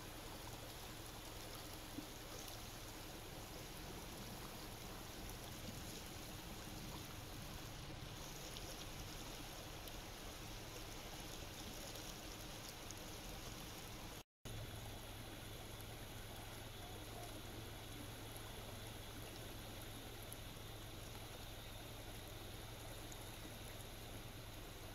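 Muddy floodwater rushing steadily through a stony wadi bed, broken by a brief silence about halfway through.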